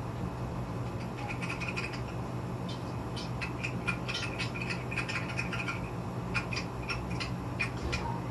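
Encon Chilli Pepper ceiling fan motor humming steadily on low speed. Over the hum, a run of short, high chirping sounds starts about a second in, from an animal in the room.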